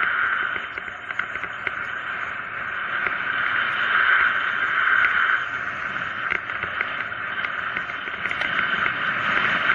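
Steady rushing hiss of wind and tyres on asphalt during a fast mountain-bike descent, swelling and easing a little, with scattered small clicks and ticks from the bike.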